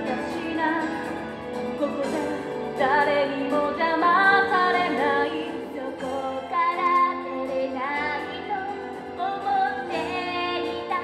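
A woman singing a musical-theatre song over instrumental accompaniment, in phrases with long held notes sung with vibrato.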